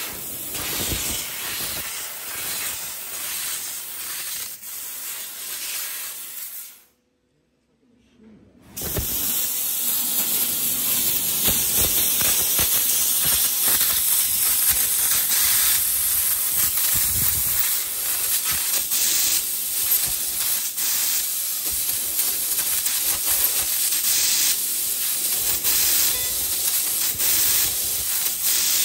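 CNC fiber laser cutting sheet metal: a steady hiss of assist gas jetting from the cutting-head nozzle, with fine crackling from the cut. It breaks off to near silence for about two seconds partway through, then resumes louder and steady.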